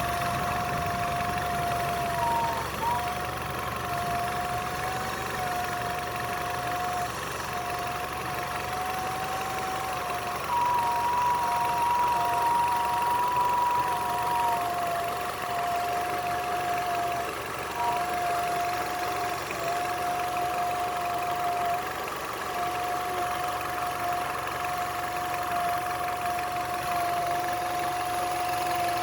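Nissan Altima engine running warm with a steady high whistle from a collapsed PCV hose. The whistle wavers and drops out briefly now and then. A second, higher whistle joins it for a few seconds near the middle.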